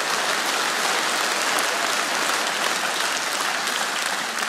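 Studio audience applauding, a steady even clapping.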